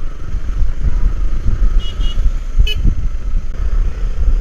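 Wind buffeting and road rumble picked up by a cheap clip-on external microphone on a GoPro while riding, with a few short high beeps from vehicle horns about halfway through.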